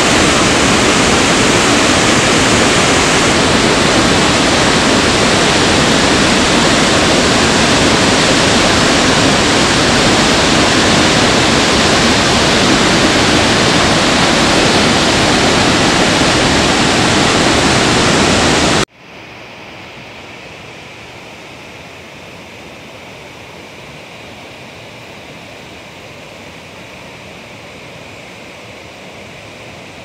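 Waterfall and white water rushing into a rocky plunge pool, a loud, steady rush of water. About two-thirds of the way through it cuts abruptly to a much quieter, thinner rush of the same churning water.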